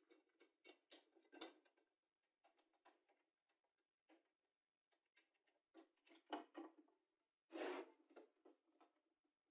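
Faint, scattered clicks and scrapes of hands and a screwdriver working in the metal wiring and switch box of an old bench grinder. A louder scraping rustle comes near the end as the switch housing is lifted and turned.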